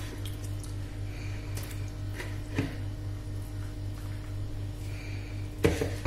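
Wet squelching of marinated sheep-neck pieces being worked and lifted out of a plastic bowl of marinade and dropped into a pressure cooker. Two soft knocks mark pieces landing, the louder one near the end, over a steady low hum.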